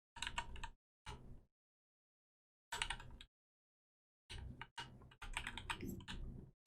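Computer keyboard keys clicking in short bursts, with dead-silent gaps between them and a longer run of typing near the end.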